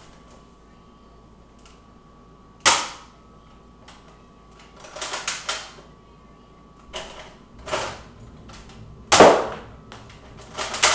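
Nerf blaster firing foam darts: a sharp pop about three seconds in and a louder one about nine seconds in, with shorter clattering sounds in between.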